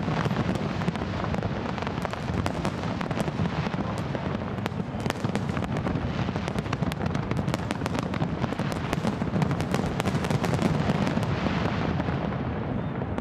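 Aerial fireworks display with many shells bursting at once: a dense, unbroken crackle of sharp pops and bangs over a steady low rumble.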